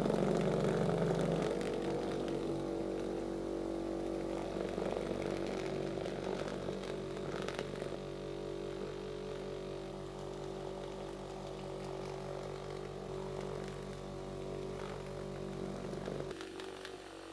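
Vibratory tumbler running: a steady electric motor hum with the continuous hissing rattle of fine granular media churning around small brass stove parts to polish them.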